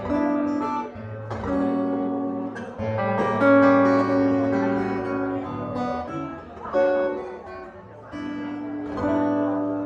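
Acoustic guitar strummed, playing a run of sustained chords that change every second or two.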